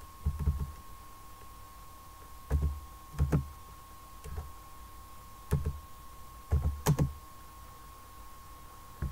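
Computer keyboard being typed on slowly: single keystrokes or short pairs of them, irregularly spaced about a second apart, each with a low thump. A faint steady tone sounds underneath.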